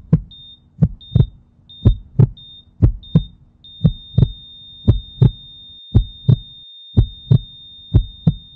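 Heartbeat sound effect, a double thump about once a second, under a heart-monitor beep that turns into a continuous flatline tone about three and a half seconds in, signalling death.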